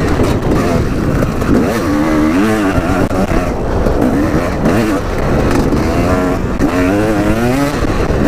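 Dirt bike engine revving up and down as it is ridden, its pitch rising and falling several times with the throttle.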